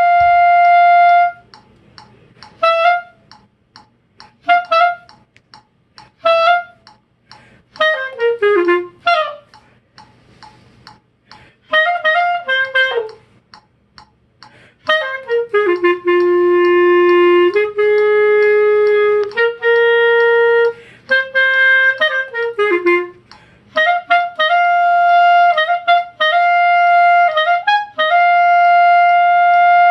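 Solo clarinet playing short phrases of quick notes and falling runs, separated by pauses. Through the middle it holds a series of long lower notes, and near the end it plays long held high notes.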